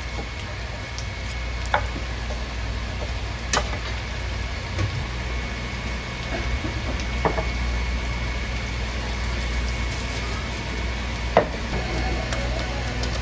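Steady low hum and hiss of the cooking equipment at a fried radish cake stall, with several sharp clicks scattered through.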